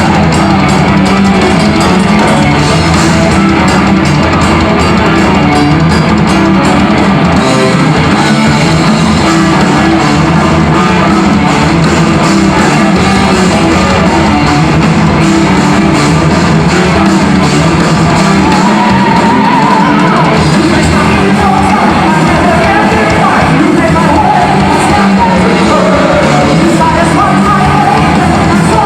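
Heavy metal band playing live: distorted electric guitars, bass and drums with a singer.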